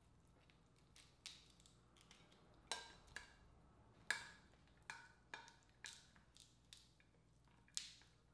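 Dungeness crab shell being cracked and snapped apart by hand: a dozen or so sharp, irregular cracks and clicks, the loudest about three seconds in, four seconds in and near the end.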